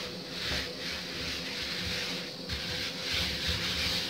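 A hand rubbing flour across a thin rolled-out sheet of dough in repeated strokes.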